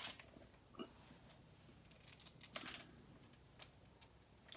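Near silence with a few faint taps and one brief rustle as a large hardback book is handled, a page or cover being turned.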